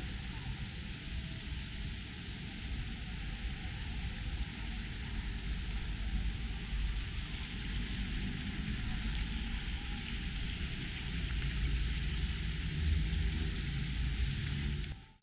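Steady outdoor background noise: a low rumble under an even hiss, with no distinct events, dropping away suddenly at the very end.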